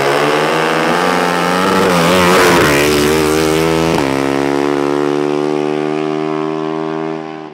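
A race engine at full throttle on a drag pass, holding a high, wavering pitch. About four seconds in the pitch steps suddenly, then holds nearly level and fades near the end.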